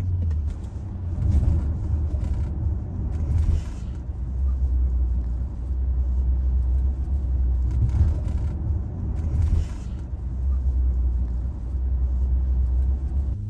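Inside a car's cabin while driving on wet roads: a steady low rumble from the moving car, with a hiss of noise above it that swells briefly a few times.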